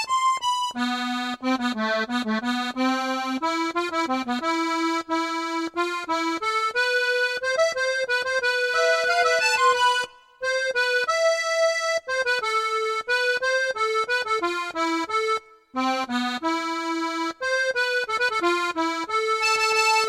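Sampled accordion sound playing a slow melody over chords and low bass notes, pausing briefly about ten and fifteen and a half seconds in.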